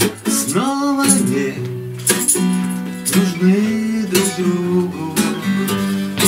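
Two acoustic guitars strummed together, with a man singing over them.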